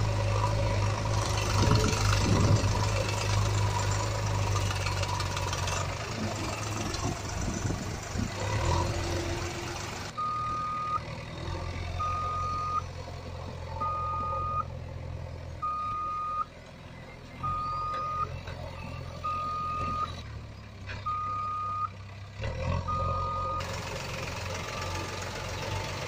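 A truck engine running with a steady low hum. About ten seconds in, a reversing alarm starts: eight single-pitch beeps, each just under a second long and about two seconds apart, over a fainter engine hum. The engine comes back up near the end.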